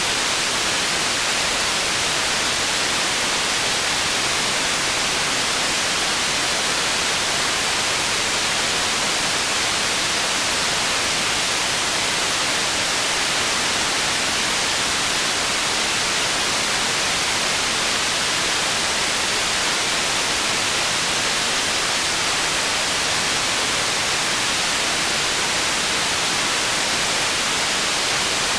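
Steady processed white noise made for tinnitus masking: an even, unchanging hiss weighted toward the high frequencies.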